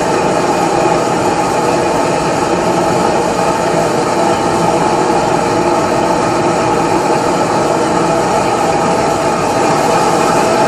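Gas blowtorch burning with a steady, even rush, its flame heating the hot bulb of a 1940 Lanz Bulldog single-cylinder hot-bulb engine: the preheating stage before the engine can be started.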